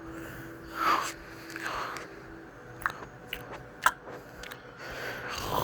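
Sleeping boy's open mouth making a few sharp clicks and smacks, with a soft breath about a second in.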